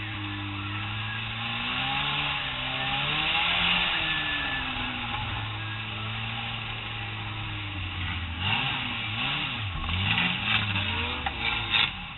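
Stock car engines heard from inside a caged cockpit, running at a steady idle, then revved up and down again and again from about eight seconds in.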